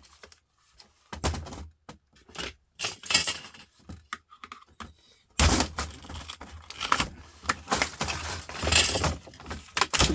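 Plastic parts of a laptop screen assembly being handled and pulled apart during a teardown: irregular clicks, knocks and scraping, sparse at first and much busier from about halfway through.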